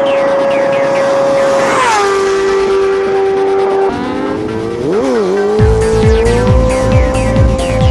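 Sport bike engine held at high revs, its pitch dropping about two seconds in, then dipping and rising again in a rev near five seconds. Electronic music with a heavy beat comes in underneath after about five and a half seconds.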